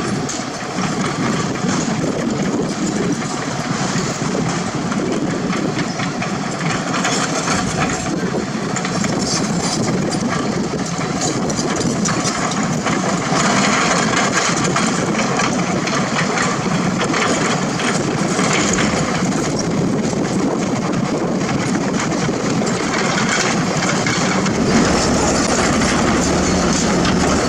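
Heavy diesel construction machinery running steadily, with a continuous metallic clatter.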